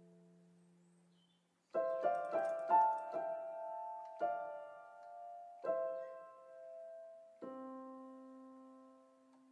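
Solo piano soundtrack music. A held chord fades out, and after a brief pause a short run of notes comes in, followed by slow chords that ring out and fade.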